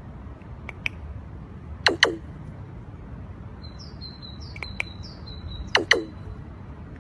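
Raven giving its hollow knocking calls: short notes in pairs, each dropping quickly in pitch like a plop of water. The pairs come about a second in, about two seconds in (the loudest) and near the end. Four faint high chirps fall between the second and third pairs.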